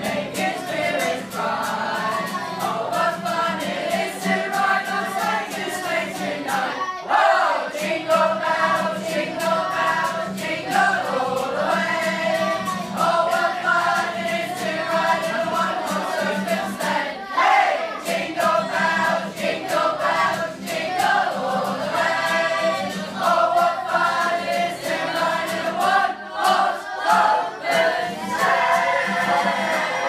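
A choir of young voices singing a song together, accompanied by a strummed acoustic guitar.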